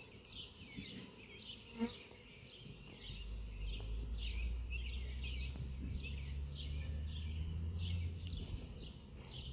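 Swarm of honey bees flying and buzzing: a steady low hum that grows louder about three seconds in.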